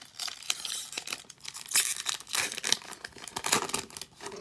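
A foil trading-card pack being torn open and its wrapper crinkled: a run of irregular crackling rips, loudest about two seconds in.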